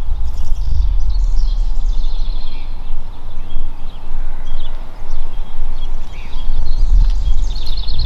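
Wind buffeting the microphone with a loud, uneven low rumble, while small birds chirp and trill in the background, most busily near the start and again near the end.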